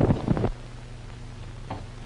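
A burst of loud, rapid clattering impacts cuts off abruptly about half a second in. It gives way to the steady hum and hiss of a 1930s optical film soundtrack, with one faint short sound near the end.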